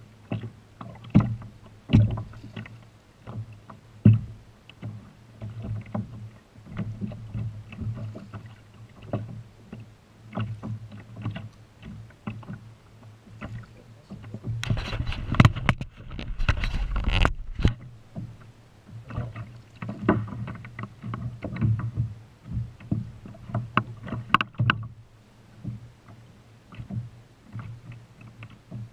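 Water slapping and knocking irregularly against a kayak's hull. Around the middle comes a louder few seconds of splashing as a hooked whitemouth croaker (corvina rubia) thrashes at the surface beside the kayak.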